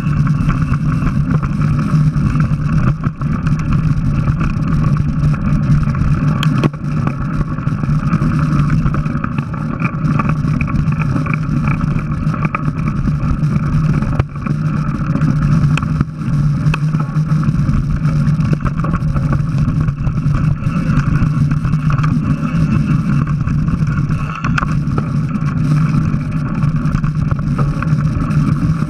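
Mountain bike riding along a dirt forest trail, picked up by a rider-mounted action camera: a steady rumble of tyres and frame vibration with wind, broken by a few brief knocks from bumps.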